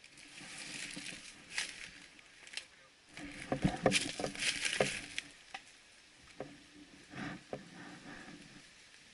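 Rustling and crunching of a person pushing through dry brush and undergrowth, with small sharp clicks and cracks, loudest from about three to five seconds in.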